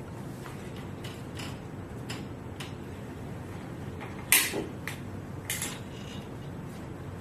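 Light clicks and then a few sharp clacks, the loudest about four seconds in, from handling a portable tabletop projector screen and its stand, over a steady low hum.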